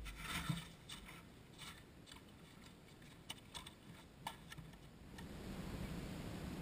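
A few faint, irregular clicks and taps, then from about five seconds in a steady faint hiss of outdoor background noise.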